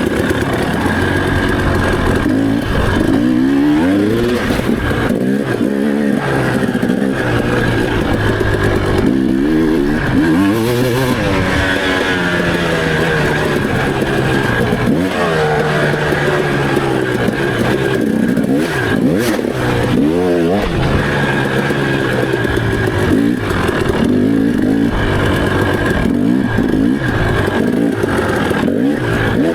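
Enduro motorcycle engine being ridden, its revs climbing and dropping over and over with the throttle.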